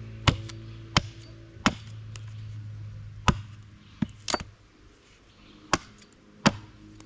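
Estwing camp hatchet chopping down along a thin stick whose tip rests on a wooden chopping block, carving a point. About eight sharp chops come at an uneven pace, two of them in quick succession a little past the middle.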